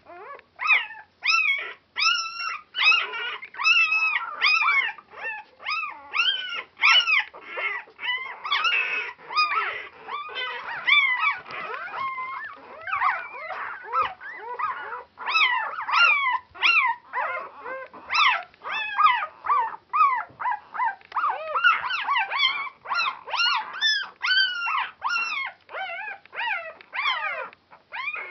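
A litter of four-day-old Border Collie puppies crying: many short, high-pitched cries, several a second, often overlapping one another.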